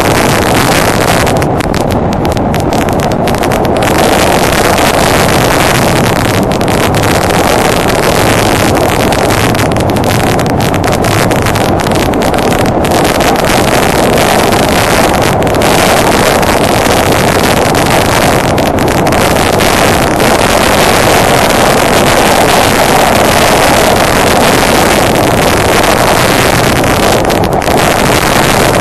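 Steady rush of wind on the microphone of a moving motorcycle, with the Honda Deauville NT650V's V-twin engine running at an even cruising speed underneath.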